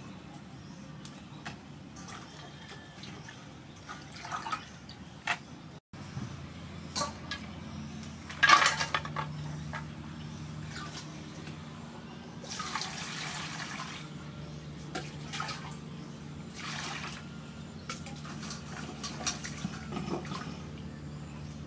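Water splashing and trickling as lemongrass stalks and herbs are rubbed and rinsed by hand in a stainless steel bowl of water, with scattered clicks and knocks, the loudest about eight seconds in. A low steady hum sits underneath from about eight seconds on.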